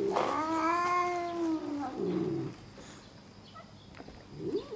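Red tabby cats yowling at each other in a territorial standoff: long, drawn-out wails, two overlapping at the start, one steady and low, the other higher and rising then falling. A short rough noise comes about two seconds in, then a lull, and the yowling starts up again at the very end.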